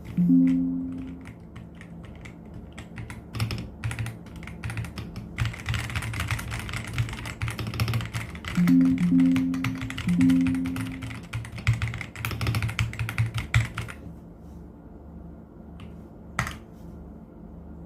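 Typing on an Ajazz AK820 mechanical keyboard: scattered keystrokes at first, then a run of fast, dense typing for about eight seconds that stops suddenly, with one more keystroke near the end. A few short, held low musical notes sound near the start and again midway.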